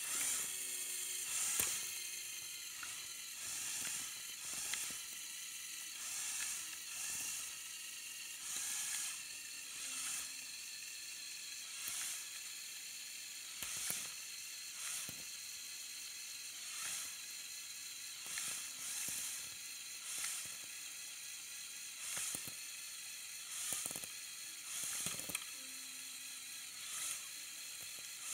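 Lego Technic motorized winch reeling in its string under load, driven by a Power Functions medium motor through a 24:1 gear reduction. It makes a steady whir with a faint click or swell roughly once a second.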